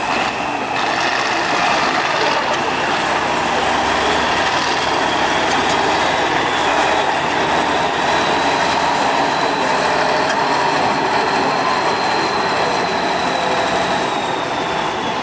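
Tatra 815 8x8 trial truck's diesel engine running steadily under load as the truck drives over rough ground, with a faint high whine that rises and falls slowly.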